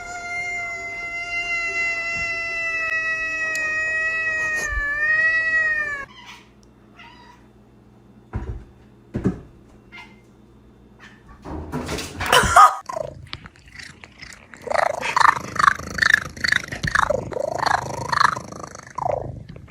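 A cat holding one long, steady meow for about six seconds that drops in pitch at the end. After a few quiet seconds with light clicks comes a sudden noisy burst, then a run of shorter, wavering meows.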